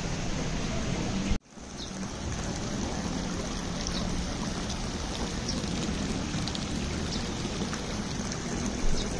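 Steady rush of running water, cut off for a moment by a brief dropout about a second and a half in.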